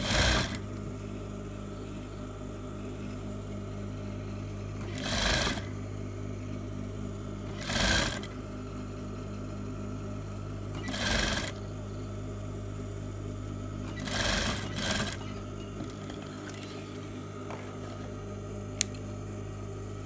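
Sewing machine stitching a zipper in, running in five short bursts of about half a second each under a steady low hum.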